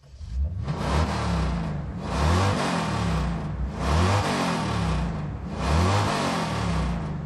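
Car engine revving hard over and over, a rev roughly every two seconds, each one sweeping up and down in pitch.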